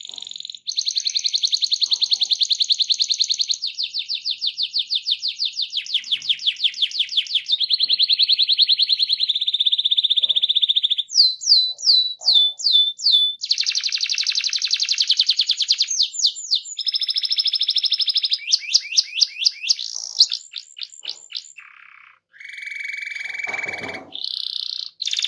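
Domestic canary singing a long rolling song: rapid trills and rolls, each held for a second or two before changing to another pattern, with a run of quick downward-sweeping notes midway.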